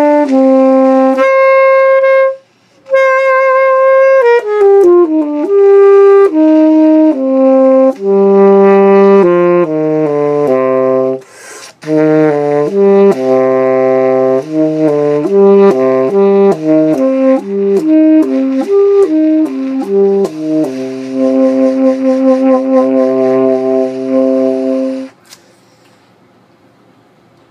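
Solo saxophone playing an etude: a run of quick notes broken by two short pauses, ending on a long held note that stops about 25 seconds in.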